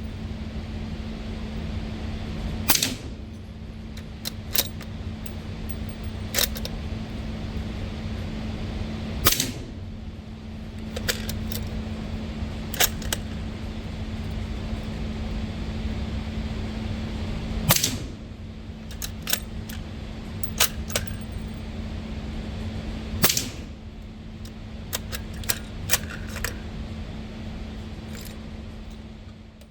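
SilencerCo-suppressed firearm firing subsonic rounds: four muffled shots several seconds apart, with smaller clicks and knocks between them. A steady low hum runs underneath.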